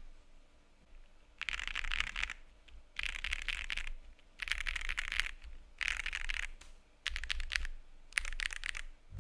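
Typing on a Bubble75 mechanical keyboard with AEBoards Community Switch R1 linear switches: six quick bursts of key clacks, each under a second long, with short pauses between.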